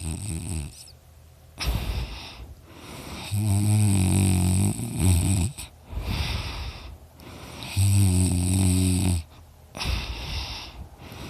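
A person snoring in their sleep, which the snorer puts down to extra tissue in his throat: a low buzzing snore lasting a second or two, about every four to five seconds, with a rushing breath between snores.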